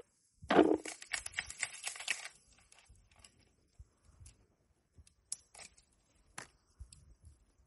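Hands picking through a heap of harvested olives and dry olive leaves: crackling and rustling of the dry leaves, with small clicks of olives. It is busiest for the first two seconds, then thins to scattered single clicks.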